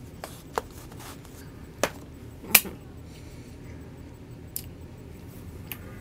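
A handful of short, sharp clicks and taps spaced a second or so apart, the loudest about two and a half seconds in, over a quiet steady room background.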